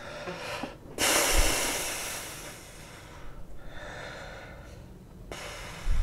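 A person's sharp exhalations, two of them: one about a second in that trails off, and another near the end.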